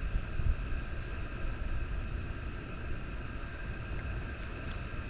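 Wind buffeting the microphone: a steady low rumble, with faint steady high-pitched tones running over it.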